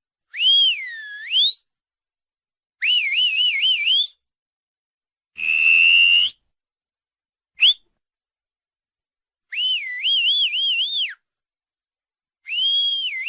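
Whistle sound effects: a string of short, high whistles separated by complete silence. First comes a whistle that swoops down and back up, then a warbling whistle, a steady note that rises slightly, a brief upward chirp, and two more warbling whistles near the end.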